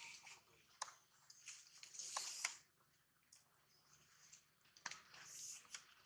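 Near silence: faint outdoor ambience with a few soft clicks and short hissy rustles, one about two seconds in and another about five seconds in.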